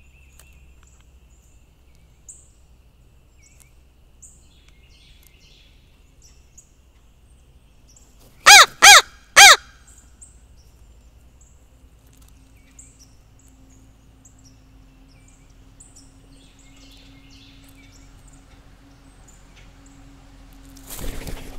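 A crow gives three loud caws in quick succession, all within about a second, midway through, with faint high chirps of small birds coming and going around it. Near the end a short burst of rushing noise, the crows' wingbeats as they take off.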